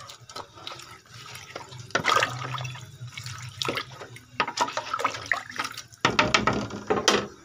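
Water sloshing and splashing in a large cooking pot as a wooden spatula stirs beef shank and trotters in spiced water, in irregular strokes.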